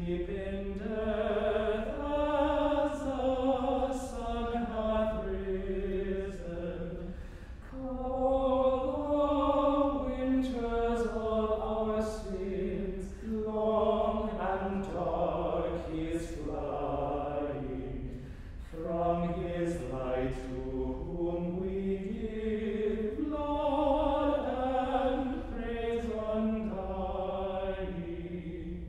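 Small men's choir singing unaccompanied chant for Compline (sung evening prayer), in long phrases with short breath pauses between them.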